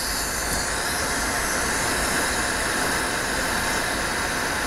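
Glassworking bench torch burning with a steady hiss while glass is heated in its flame.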